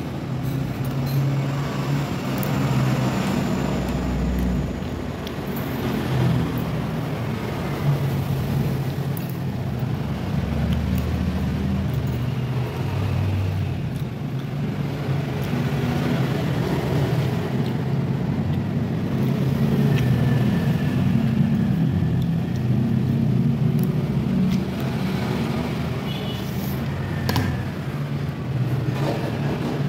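Steady low background rumble, with a few light clinks of a metal spoon and fork against a ceramic bowl now and then.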